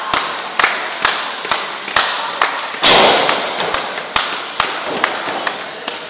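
Hand claps in a steady rhythm, about two a second, echoing in a large hall, with one louder crash about halfway through.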